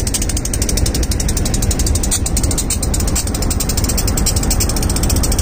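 Pakistan Railways GEU-20 diesel-electric locomotive running close by: a steady low rumble under a fast, even mechanical clatter.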